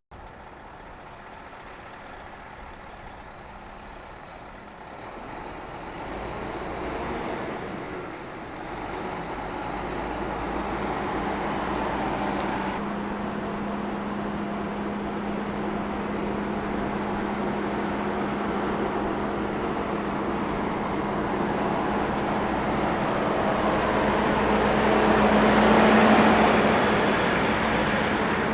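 A large diesel harvest vehicle running and drawing closer, growing steadily louder until about 26 seconds in, then beginning to fade as it passes. A steady engine hum holds underneath from about twelve seconds in.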